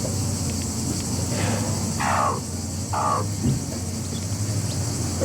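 Chickens calling, with two loud, harsh squawks about two and three seconds in and a fainter one before them, over a steady low hum.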